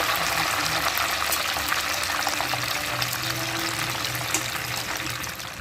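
Whole chicken deep-frying in hot oil: a loud, steady sizzle full of fine crackles and pops.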